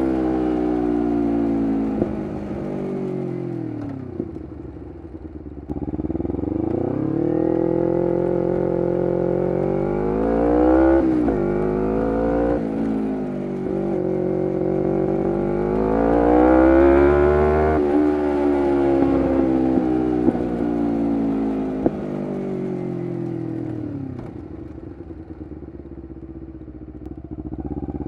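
2011 Kawasaki Ninja 250R SE parallel-twin engine through a full Graves race exhaust, pulling and easing off under way. Its pitch climbs and falls again and again, dropping quickly about eleven seconds in and again near eighteen. It runs lower and quieter for a few seconds before picking up again near the end.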